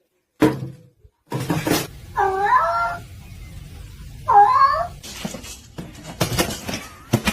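A cat meowing twice, two drawn-out meows about two seconds apart, among scattered knocks and rustling.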